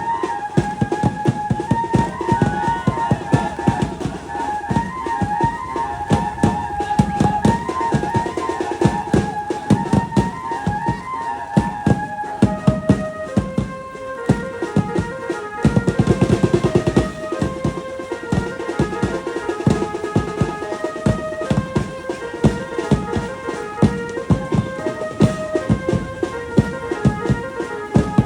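Garba dance music: a fast, steady drum beat under a melody of held notes.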